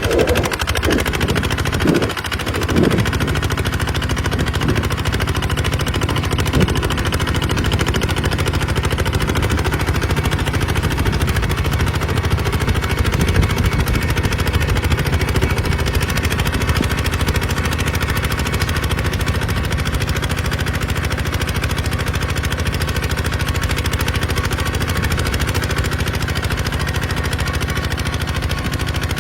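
Kubota RT140 single-cylinder diesel engine running steadily, a rapid chugging beat, with a few short squeaks about one to three seconds in.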